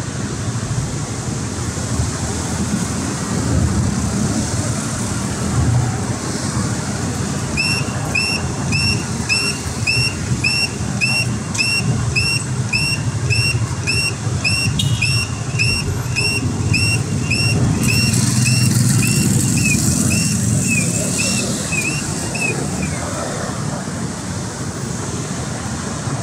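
Pedestrian crossing signal chirping rapidly, about three short high chirps a second, starting about seven seconds in as the green walking man lights and stopping a few seconds before the end; it signals that it is safe to cross. Steady road traffic runs underneath.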